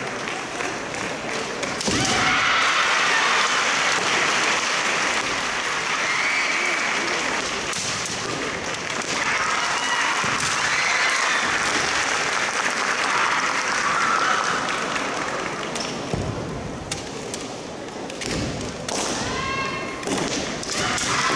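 Female kendo fencers' kiai: long, high-pitched yells repeated through the bout, with the sharp cracks of bamboo shinai and stamping on the wooden floor in between.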